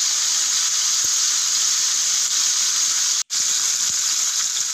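Fish pieces shallow-frying in hot oil in a pan, sizzling steadily. The sound drops out for an instant about three seconds in.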